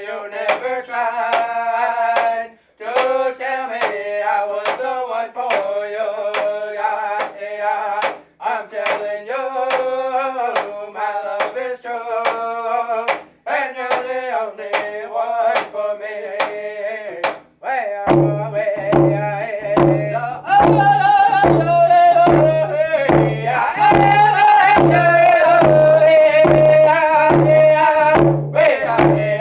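Two male voices singing a round dance song together, each beating a hide hand drum in a steady beat. About two-thirds of the way through the drumming turns heavier and deeper and the singing grows louder.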